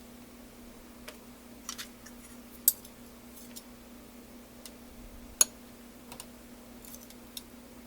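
Metal utensil clicking and tapping against a plate while butter is worked into mashed sweet potato. There are a few light clicks and two sharp, louder ones near the middle.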